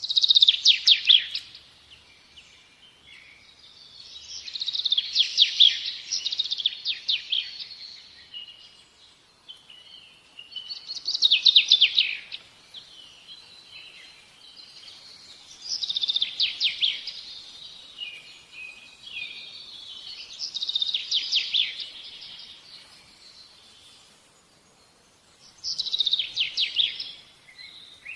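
A songbird singing: six bursts of rapid, high chirping trills, each a second or two long and a few seconds apart, with softer twittering in between.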